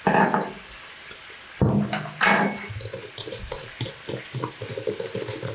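Wire whisk beating eggs and sugar in a stainless steel bowl, a quick run of metallic taps and scrapes at about four strokes a second from about three seconds in. Two louder clatters come in the first two seconds.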